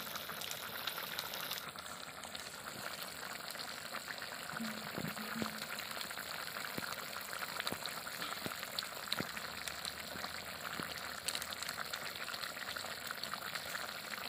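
Jackfruit curry simmering in a kadai: a steady sizzling hiss with scattered small pops and crackles as the gravy bubbles.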